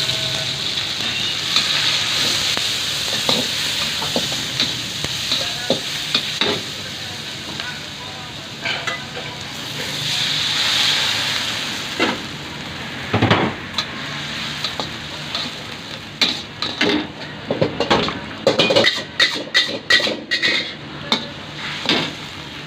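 Black pepper fried rice sizzling in a hot wok while being stirred and tossed with a metal spatula. In the second half the spatula clanks rapidly and repeatedly against the wok.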